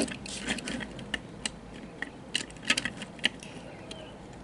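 Irregular light clicks and taps of a die-cast toy car's metal and plastic knocking against a toy truck's fold-out carrier as it is handled and fitted in place.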